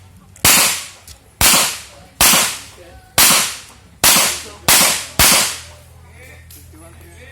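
Revolver fired seven times, about a second apart at first and faster toward the end, each shot followed by a short echoing decay.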